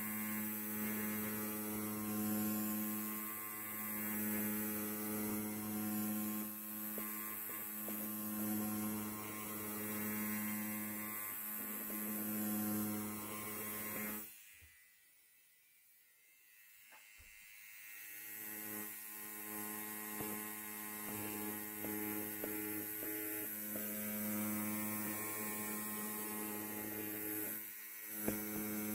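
Electric hair clippers buzzing with a steady, even hum. About halfway through, the buzz cuts out for about three seconds and then fades back in. Near the end it dips briefly and there is a short click.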